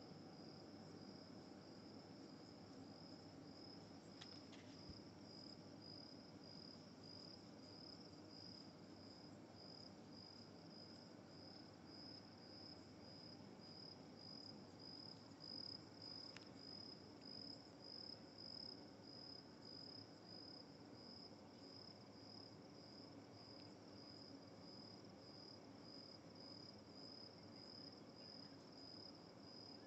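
Faint cricket trilling steadily in an evenly pulsing high note, with a couple of faint clicks.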